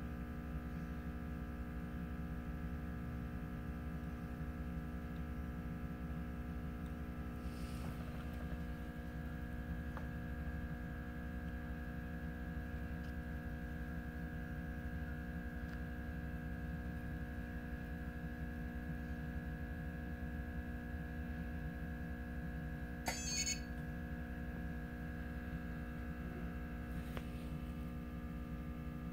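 Steady machine hum made of several fixed tones over a low rumble, from the reflow oven running while the board's solder reflows. A short sharp click comes late on.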